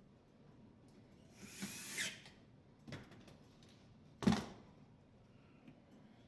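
Tool handling during reassembly of a dishwasher's panels: a rasping scrape or short whir of about a second, a light click, then a sharp knock, the loudest sound.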